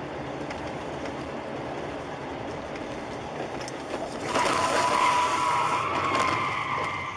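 Steady road and engine noise heard from inside a moving car. About four seconds in, a loud, shrill, held tone starts over it, lasts about three seconds, and cuts off suddenly.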